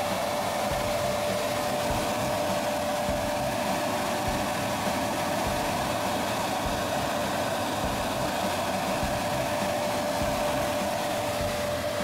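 Blower of a Fuji Paudal Midget Dryer fluid-bed dryer running steadily: a constant rush of air with a steady whine.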